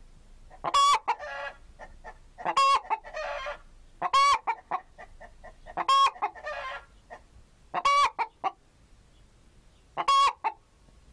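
Domestic chicken clucking: six loud, short calls about every one and a half to two seconds, each followed by a few quicker, softer clucks.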